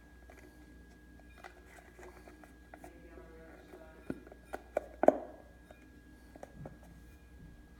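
Light handling sounds with a few short taps and knocks about four to five seconds in, the loudest near the end of that cluster, as school glue is emptied from its bottle into a mixing bowl.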